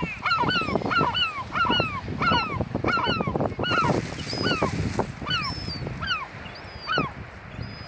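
Gulls calling: a rapid series of short calls, each rising then falling, about two a second, turning sparser, higher and fainter in the second half.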